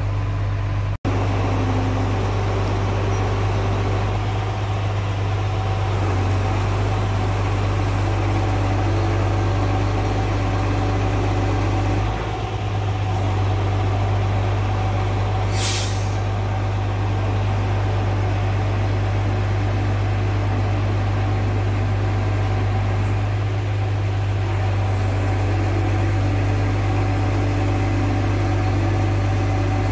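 Crane's engine running steadily as it holds and lowers a steel H-beam on webbing slings. A short hiss comes about halfway through.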